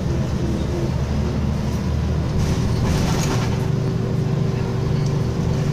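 Wright Axcess Floline single-deck bus heard from inside while driving: a steady low engine and drivetrain drone with road noise. A steady whine comes in about halfway, with a brief hiss just before it.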